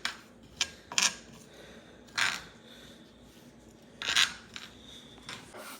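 Kitchen utensils and containers being handled: a couple of sharp clinks about half a second and a second in, then two short scraping or rustling sounds about two and four seconds in.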